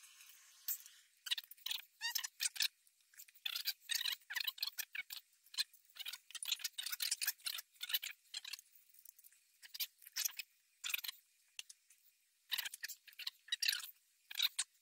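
Stripped steel parts of a Marswell Model 1914 12-gauge pump shotgun being handled during cleaning: irregular light clicks, taps and scrapes of metal on metal, with a few short pauses.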